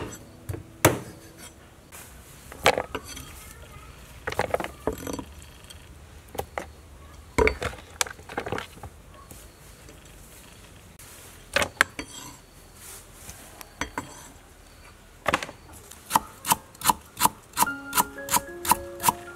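Cleaver chopping on a wooden cutting board: scattered hard chops through raw chicken feet, then a quick even run of chops, about three a second, near the end as a root is sliced.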